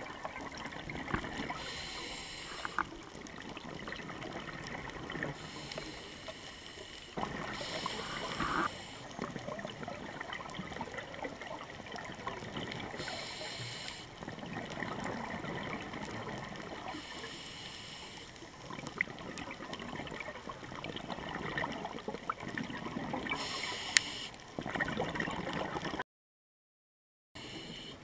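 Scuba diver breathing through a regulator, heard through an underwater camera housing: a hissing inhale every few seconds alternating with gurgling exhaled bubbles, with faint crackling clicks throughout. The sound drops out completely for about a second near the end.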